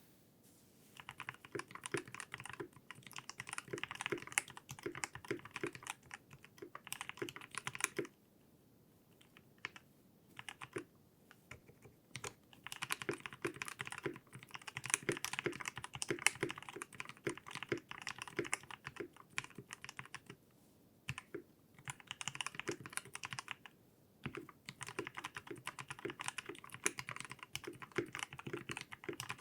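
Typing on a 60% mechanical keyboard with Unholy Panda switches lubed with Krytox 205, PBT keycaps, a brass plate and a KBDfans 5° aluminium case: quick runs of key clacks lasting a few seconds, broken by short pauses.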